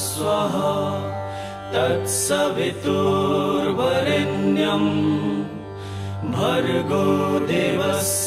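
Devotional background music: a mantra sung in phrases over a steady low drone.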